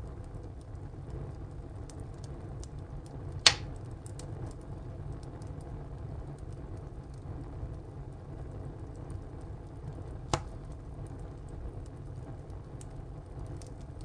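Wood fire burning in a tile stove: a steady low noise of the flames with faint, scattered crackling, and two loud sharp pops of the burning wood, one about three and a half seconds in and one about ten seconds in.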